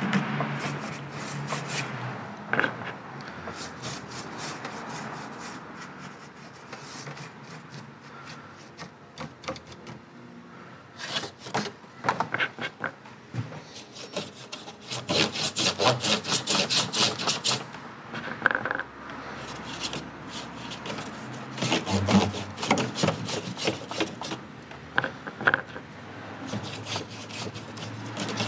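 A paintbrush scrubbing paint onto a wooden dollhouse, in bursts of quick rubbing strokes with an occasional knock.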